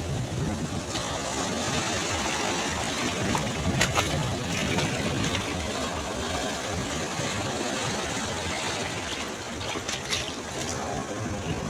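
Ocean surf: a steady wash of waves breaking on the shore, with a few brief crackles about four and ten seconds in.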